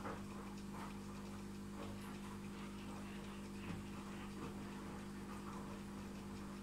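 Aquarium equipment running: a steady low electrical hum with irregular soft water drips and plops, a couple a second.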